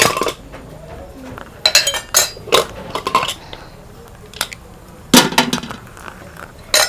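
Metal ladle clinking and knocking against an aluminium pressure cooker of boiled urad dal as it is stirred: a handful of irregular sharp clinks.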